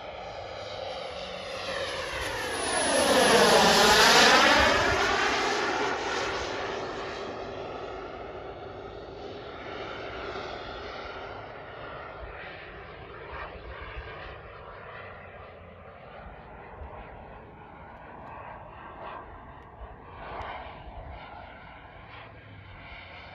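Turbine-powered radio-controlled model L-39 jet making a fast pass: the turbine's whine and rush swell to a peak about four seconds in with a swooshing sweep in pitch, then fall back to a steadier, more distant run as it flies on.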